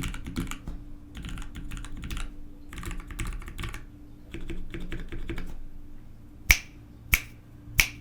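Typing on an ALF DC60 mechanical keyboard with Gateron FF Yellow switches lubed with Krytox 105+205 and GMK keycaps: runs of quick keystrokes for about five and a half seconds, then three single, much louder sharp clacks about two-thirds of a second apart.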